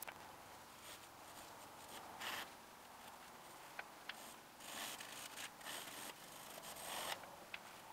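Pencil hatching on drawing paper: faint scratchy strokes in irregular bursts, with a few small ticks.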